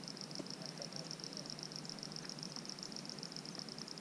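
Insects calling in a steady high-pitched chorus, a fast, even pulsing that does not let up, over soft low background noise.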